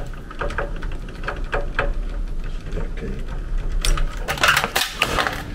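Small clicks and rattles of wire connectors and terminals being handled and pushed together inside a furnace's metal control compartment, over a low steady hum. About four seconds in comes a louder stretch of scraping and rustling.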